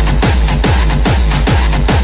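Electronic dance music: a techno track with a deep kick drum that drops in pitch, about three beats a second.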